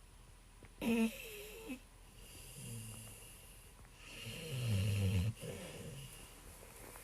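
A dog snoring in its sleep: drawn-out, low, rattling snores, the one just before the middle louder than the first. About a second in there is a short, louder sound with a higher, wavering pitch.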